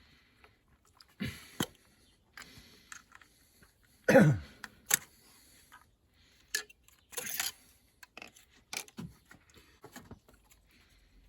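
Scattered clicks, taps and rattles of tools and brittle plastic as the ignition coils and their connectors are worked loose, with one louder short sound falling in pitch about four seconds in.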